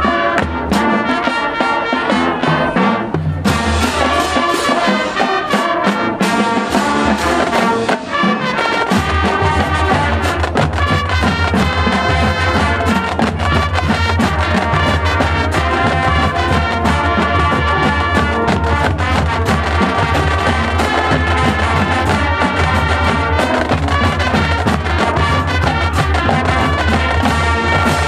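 High school marching band playing, brass with drums, loud and full; a heavy low bass part comes in about nine seconds in.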